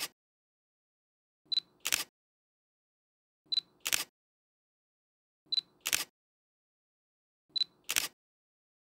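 Camera autofocus-confirm beep followed by a sharp shutter click, repeated four times about two seconds apart, each click about a third of a second after its beep.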